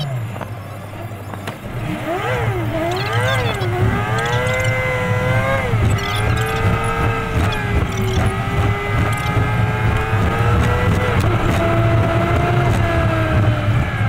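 Truck engine and road noise played back fast, so the engine's pitch is raised. It swoops up and down quickly a few seconds in, then holds fairly steady with small rises and falls.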